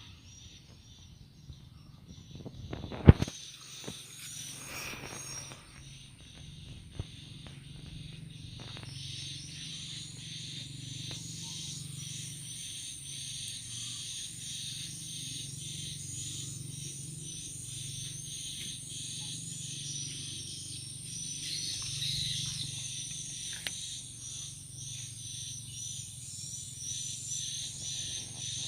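Insects chirping in a dense chorus: rapid, evenly repeated high chirps over a steady high whine, with one sharp knock about three seconds in.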